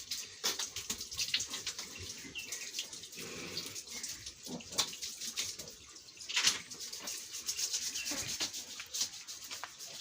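Scrubbing with water: a steady run of short, brisk rubbing strokes on a wet surface, with one louder stroke about six and a half seconds in.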